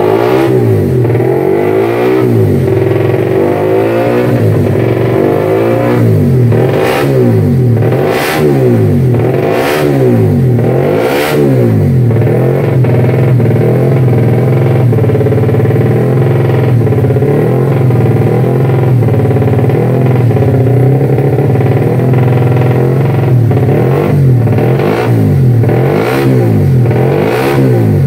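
Honda GTR150 race bike's single-cylinder four-stroke engine revved with no load on its paddock stand: quick repeated throttle blips, each rising and falling within about a second, then held at a steady high rev for about ten seconds, then blipped again near the end.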